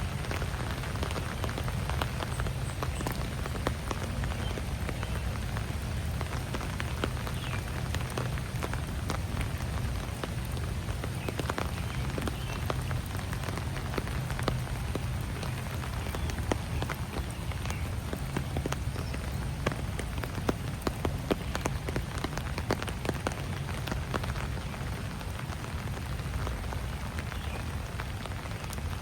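Steady rain falling, with many separate drops ticking throughout over a steady low rumble.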